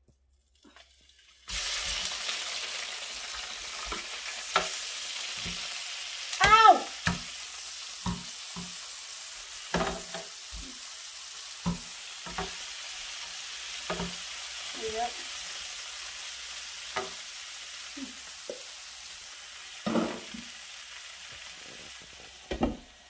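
Diced beef sizzling in hot oil in a frypan. The hiss starts suddenly as the first pieces go in, and metal tongs clack against the pan every second or so, with one louder wavering squeal about six seconds in. Near the end the lid goes on with a clunk and the sizzle drops away.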